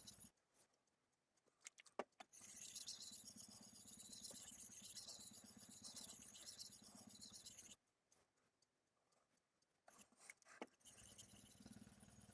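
Faint hiss of a steel knife blade being rubbed back and forth on a wet 1000-grit Suehiro Debado S whetstone. It stops twice, with a few light clicks in the pauses.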